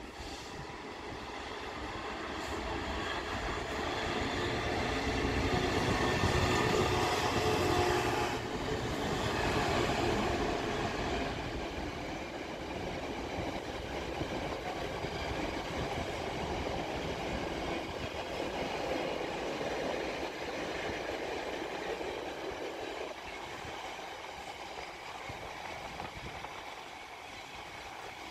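A train running through the station without stopping: wheels rumbling and clattering over the rails, building to a peak about six to ten seconds in, then easing to a steady rumble as a container freight train rolls along the far lines.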